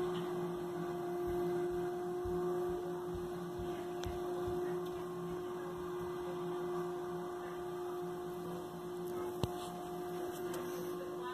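Steady hum of a Johnston VT650 road sweeper on a Scania chassis working along the road, heard through window glass, with a single sharp tick late on.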